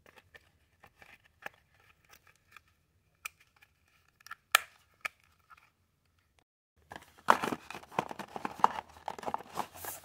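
Knife and thick leather sheath handled: light scrapes and clicks as the blade goes into the sheath, with one sharp click about halfway through. From about seven seconds in, dense, louder rustling and scraping as a cardboard knife box is handled.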